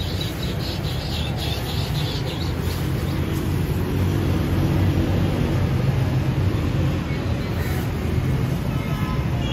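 Steady street traffic noise: a low, unbroken rumble of passing vehicles.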